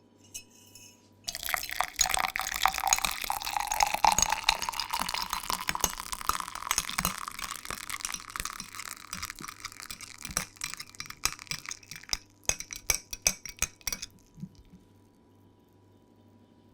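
Liquid sloshing in a glass while a spoon clinks against the glass for about thirteen seconds. Over the last second or two only separate clinks are left, then it stops.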